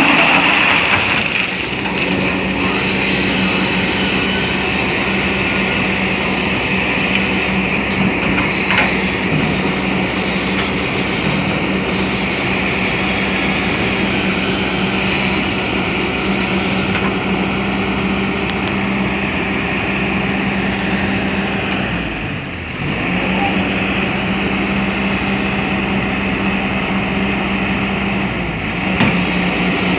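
Excavator's diesel engine running steadily as it works, a constant hum under a noisy mechanical wash, easing off briefly about two-thirds of the way through.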